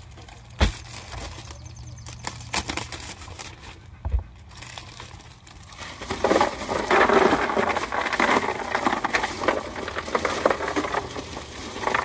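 Bagged ice cubes poured out of a plastic bag into an IcyBreeze portable air-conditioner cooler: a dense clatter of cubes tumbling into the chest, with the bag crinkling, starting about six seconds in and loudest just after. Before that, two single knocks.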